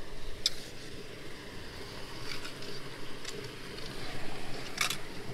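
Steady outdoor background noise with a few short crackles, the clearest about half a second in and near the end.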